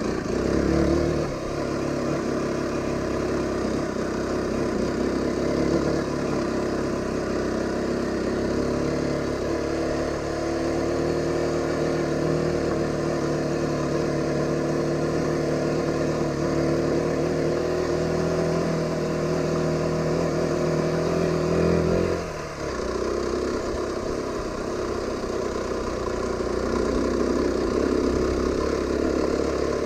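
Aprilia RX125 motorcycle's single-cylinder engine running under way with a steady note. About twenty-two seconds in the note drops suddenly, and afterwards it sounds rougher and less even.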